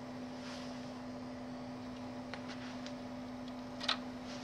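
A few faint, light clicks as a small screw is backed out of a sheet-metal cover with a hand screwdriver, with one sharper click near the end. A steady low hum runs underneath.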